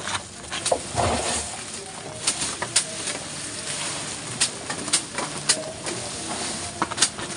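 Rustling and crackling of cut green forage leaves and stalks being dropped and packed into a plastic drum for silage, with sharp snaps every second or so and a louder rustle about a second in.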